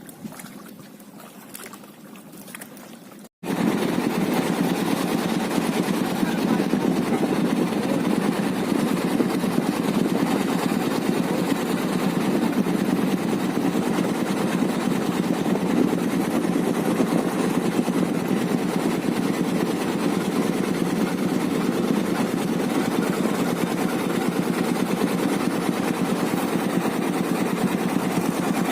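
Quiet outdoor background, then after a sudden cut about three seconds in, a boat engine running steadily at a constant pitch.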